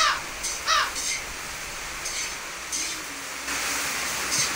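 Kitten mewing: short, high cries that fall sharply in pitch, repeated every half second to a second. A steady hiss sets in about three and a half seconds in.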